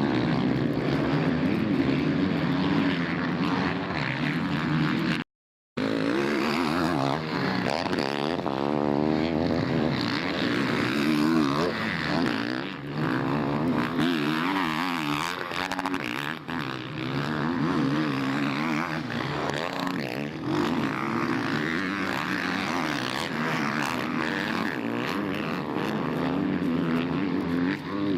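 Motocross bikes racing: several dirt-bike engines revving up and down over one another. The sound cuts out completely for a moment about five seconds in.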